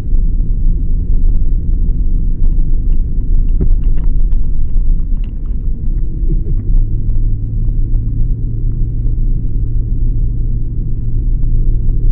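Low rumble of a car driving, engine and tyre noise, with scattered light clicks and rattles. About six seconds in, a steadier engine hum comes up.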